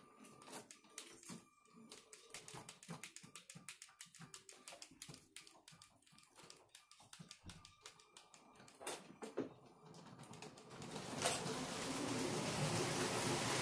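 Lego train running on plastic track, giving a quick irregular clicking like typing, with a faint steady whine underneath. Near the end a rising rustle takes over.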